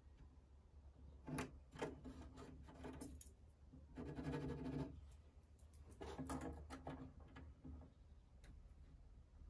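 Pencil scratching on the wooden edge of a chest panel in a series of short marking strokes, one longer stroke in the middle, over a faint low hum.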